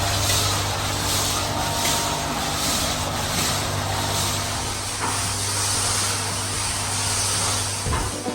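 High-pressure water jets of an industrial tank-washing machine spraying steadily, a dense hiss with a faint regular pulse, over a low hum from the machine's pump.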